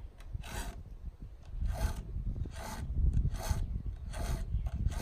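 A 7/32 round file being stroked across the cutting teeth of a chainsaw chain: about six rasping file strokes, roughly one a second, with a low rumble underneath.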